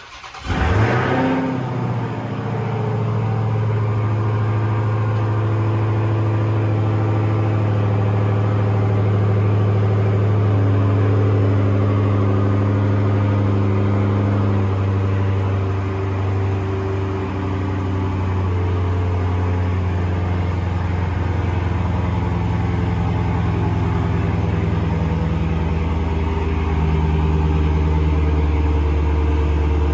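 Dodge Charger widebody's V8 starting up with a brief rev flare, then settling into a steady, deep idle.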